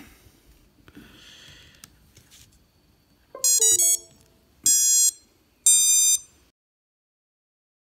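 ESC startup tones played through a brushless drone motor (Armattan Oomph 2206, driven by an FVT Littlebee BLHeli_S ESC): a quick run of stepped beeps, then two separate longer beeps about a second apart. They sound when the ESC powers up, here with the flight controller newly powered over USB. Faint handling of the cable comes before them.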